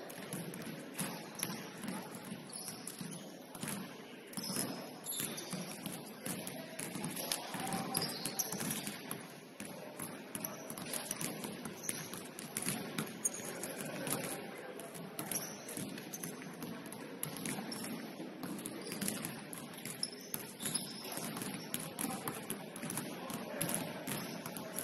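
Basketball being played: scattered knocks of the ball and players' feet among indistinct voices on court.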